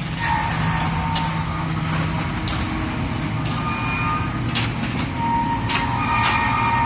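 Heavy construction machinery running steadily, with intermittent high metallic squeals and several sharp clanks.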